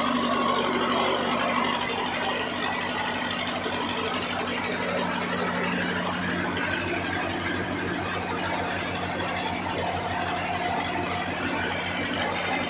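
Old Belarus tractor diesel engine running steadily, turning the flat belts and pulleys that drive a flour mill.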